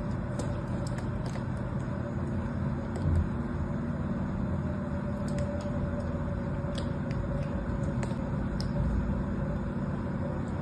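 Faint crisp ticks and small snaps of a craft-knife blade slicing thin pieces off a small block of blue soap, over a steady low rumble.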